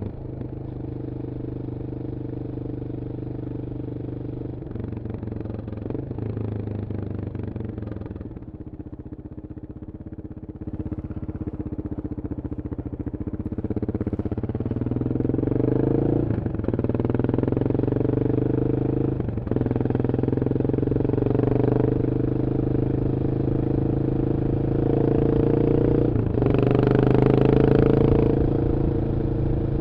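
Yamaha XT 600's single-cylinder four-stroke engine through a GPR Trevale aftermarket exhaust, running at speed. It eases off for a couple of seconds, then pulls again with rising revs and shifts up twice before settling into steady running. A brief rush of noise comes near the end.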